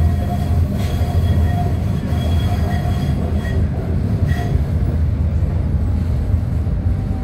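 London Tramlink tram running on its rails, heard from inside the car: a steady low rumble of wheels and running gear with a faint thin whine over it.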